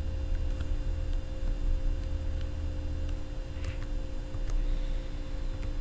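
Steady low electrical hum with a few faint, scattered clicks from a computer mouse.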